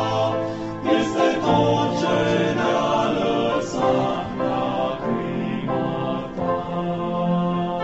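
Male vocal group singing a religious song in close harmony, several voices holding chords together.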